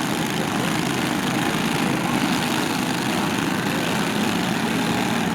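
Lawn tractor engines running together at a steady level, making a dense engine noise with no single pitch standing out.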